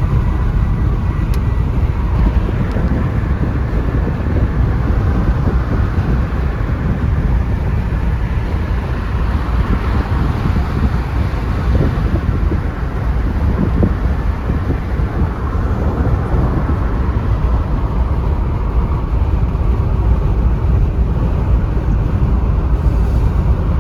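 Steady loud road noise of a moving vehicle, with a heavy low rumble of wind on the microphone.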